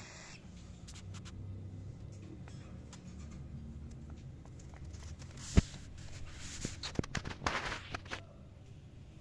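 Cockatiel moving about, with light scraping and tapping and a sharp click a little past the middle. Scratchy rustling follows in the latter part, with no chirps or calls.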